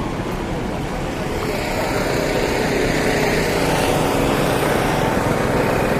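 Heavy truck's diesel engine running, growing louder about a second and a half in as it comes closer.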